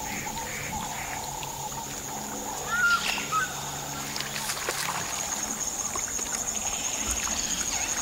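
Wetland ambience as marabou storks wade and probe a shallow pool for fish: light splashing and trickling water, a steady high-pitched whine, and a brief chirping call about three seconds in.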